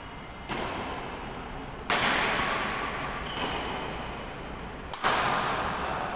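Badminton rackets striking a shuttlecock during a rally, a sharp hit about every one to three seconds, each trailing off in a long echo.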